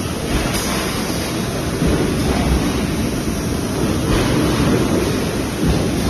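Steady noise of an automatic empty plastic bottle bagging machine running, with a few brief faint hisses as it pushes rows of bottles into place.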